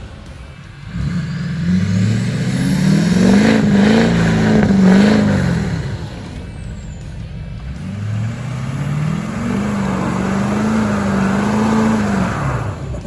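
Chevy Silverado 2500's Duramax turbodiesel V8 revved hard twice, each time climbing in pitch and holding, as the truck tries to climb a snowy trail and its tyres dig in and spin: the truck is getting stuck.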